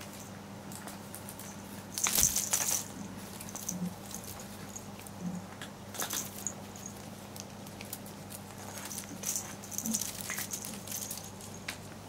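A cat biting, clawing and kicking a shiny green toy, making bursts of crackly rustling and scratching. The loudest burst comes about two seconds in, with more around the middle and between nine and eleven seconds. A steady low hum runs underneath.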